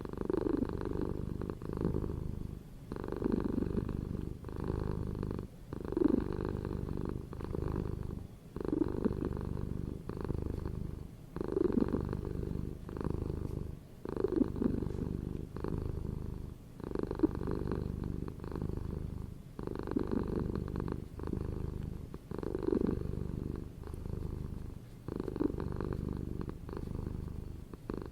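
Continuous cat-like purring, swelling and easing in steady breath cycles about every three seconds.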